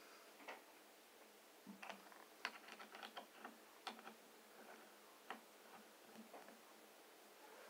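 Faint, scattered small clicks and taps from handling a vape: a plastic e-liquid bottle is opened and the tank on the box mod is filled. A quick cluster of clicks comes about two to three and a half seconds in.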